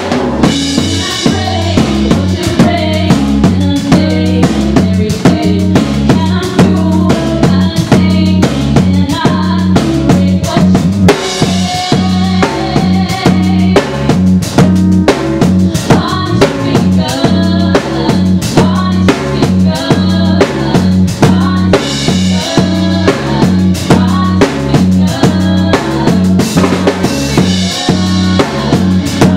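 Live band playing a song, a drum kit keeping a steady beat on kick and snare over a repeating bass line and other instruments.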